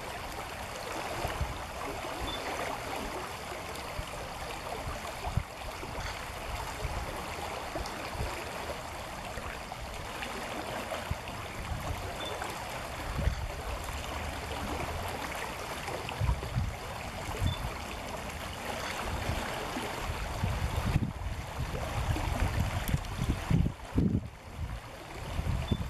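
Brook water running steadily over stones, with irregular low rumbles that grow stronger in the last few seconds.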